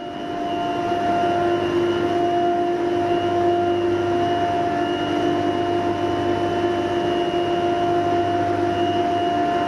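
Large industrial seawater pumps and their electric motors running steadily in a desalination plant's pump hall. The sound is a dense machine hum with several steady whining tones.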